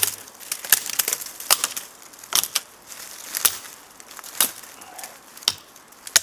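Tops Knives Bushcrafter Kukri 7.0 blade chopping through bare dead branches: about eight sharp, separate chops, a little under one a second.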